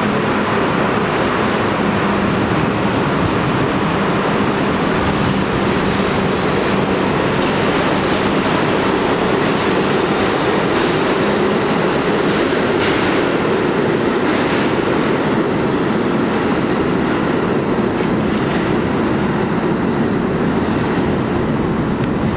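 R32 subway train pulling out of a station, its motors and steel wheels running on the rails in a steady loud rumble. A steady hum fades out about halfway through, and a few faint wheel squeals come later.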